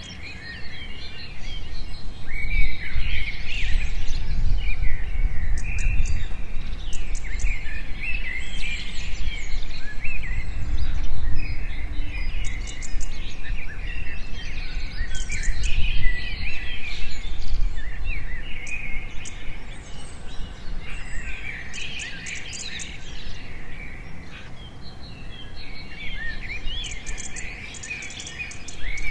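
Several birds chirping and trilling in overlapping calls, over a low rumble.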